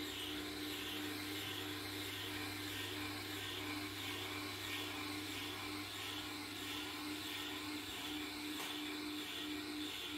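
Tormek sharpening machine running with a steady motor hum and a faint regular pulsing, while a knife is drawn slowly across its composite honing wheel.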